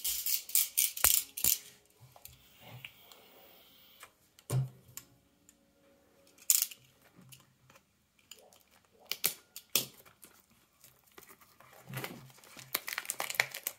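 Handling noise from a yellow snap-off utility knife and a sealed trading-card hobby box: scattered clicks and short plastic rustles at irregular intervals, bunched together near the start and again near the end.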